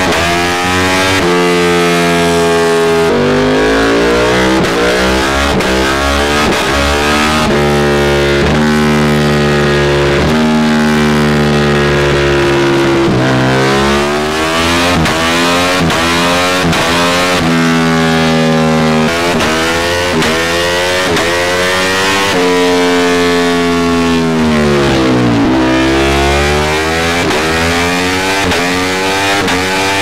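Ducati Panigale V4's 90-degree V4 engine breathing through an Austin Racing exhaust, run on a dyno: the revs repeatedly climb, hold briefly and drop. A little past three-quarters of the way through, the pitch falls low and climbs steeply again.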